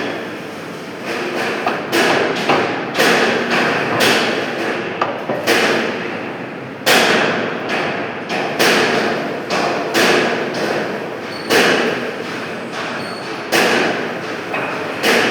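Heavy knocks about once a second, unevenly spaced, over a steady background of machine-shop noise.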